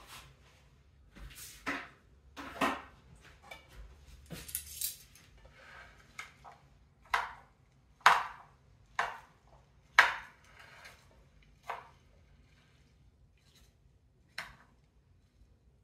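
Metal salad tongs clinking and knocking against a serving platter while salad is tossed: about ten sharp clinks at irregular intervals, a second or so apart.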